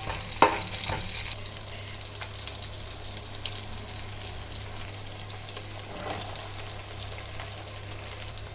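Onions, green chillies, cashews and carrot sizzling steadily in hot ghee and oil in a kadai, with a few knocks of the stirring spoon near the start.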